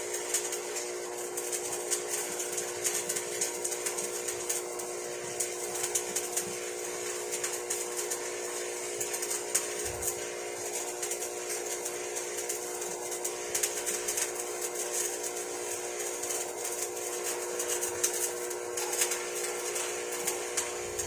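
Shielded metal arc welding on carbon steel pipe with a 6013 electrode: the arc gives a steady frying crackle. A steady hum runs underneath.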